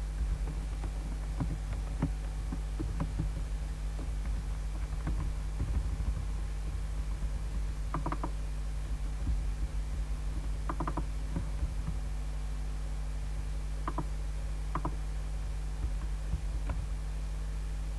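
Steady low electrical hum from a computer setup and its microphone, with scattered light clicks of a computer mouse and keyboard, a few sharper double clicks among them.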